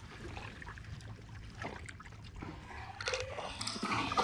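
Water lapping and small sloshes at the boat's side as a released bass swims off, then a splashing that grows near the end as the fish thrashes at the surface.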